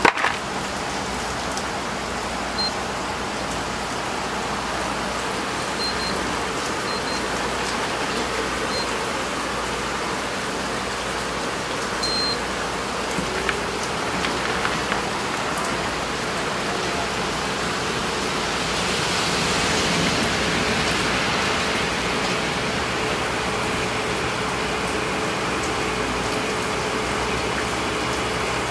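Water running from the spout of an automatic ramen cooker into a paper bowl of dry instant noodles: a steady hiss, with a few faint short high beeps in the first dozen seconds.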